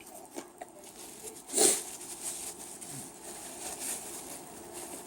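Close-up eating sounds of someone eating hot chicken wings: small wet chewing clicks and smacks, with one louder short breathy noise about a second and a half in.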